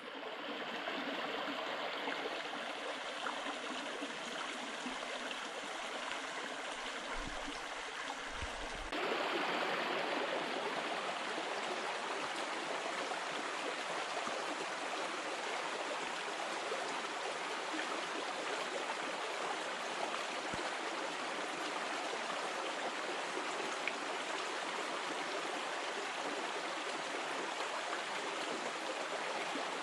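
Steady rush of running water, like a stream or small brook flowing. About nine seconds in it becomes a little louder.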